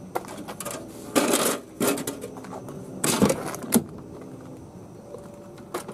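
A few short bursts of rustling and clicking: handling noise from the camera and the wiring being moved about close to the microphone, over a faint steady hum.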